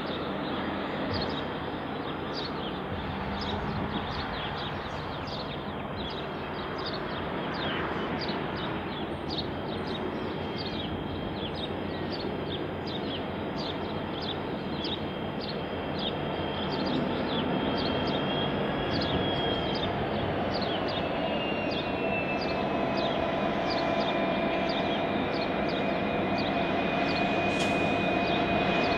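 Diesel locomotives of a coal train approaching on the mainline, their engines and the rumble of the train growing steadily louder. A steady whine joins the sound about two-thirds of the way through.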